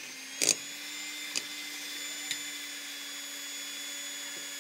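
Electric hand mixer running at a steady speed, its beaters whisking thick cake batter in a glass bowl, with a few clicks on top, the sharpest about half a second in.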